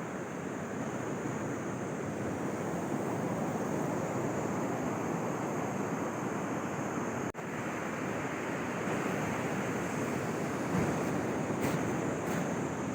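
Sea surf washing onto a beach, a steady rushing noise, which cuts out for an instant about seven seconds in.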